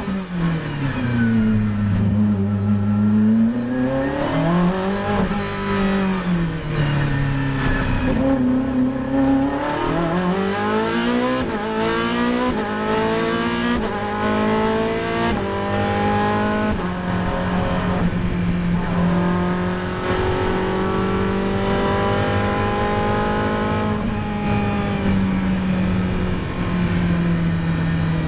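Ferrari 458 GT3's V8 heard from inside the cockpit under hard acceleration: the revs dip and rise in the low gears, then it climbs with quick upshifts about every second and a half before holding a steady high-rev run in top gear.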